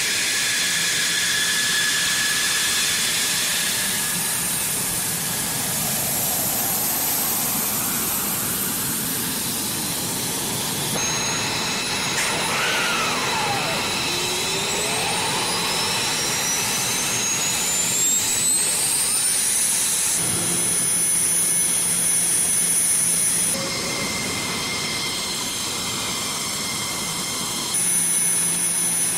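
Fighter jet turbine engines whining on a flight line, with the sound changing abruptly several times. Midway, a whine rises steadily in pitch for several seconds as an engine spools up.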